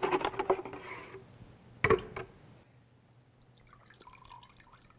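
Marinade dripping off a raw flank steak as it is lifted out of a plastic marinade container, with faint drips and small wet sounds near the end. A single sharp knock, about two seconds in, comes from the container being handled.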